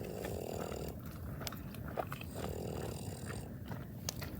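Campfire crackling and popping, scattered sharp snaps over a steady rush of burning. Two soft swells of rushing noise come in, one at the start and one about halfway.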